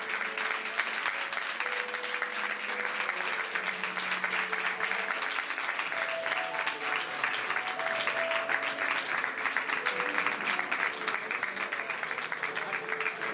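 Small audience applauding steadily, with quiet music underneath.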